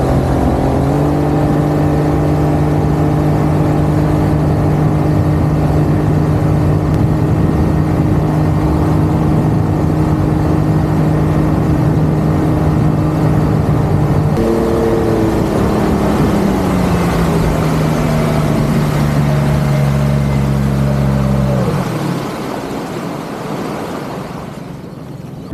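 Outboard motor pushing a small aluminium boat at steady planing speed, with wind and water rushing past. Past halfway it is throttled back, its pitch falling in steps, and near the end it drops off to a low idle as the boat comes off the plane.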